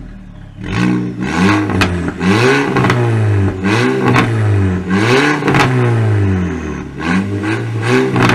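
Volkswagen Golf GTI MK5's 2.0-litre turbocharged four-cylinder revved in a series of quick blips through a Guerrilla bypass-valve exhaust with the mid muffler deleted, the pitch rising and falling with each rev after a quieter first second. A few sharp cracks sound in among the revs.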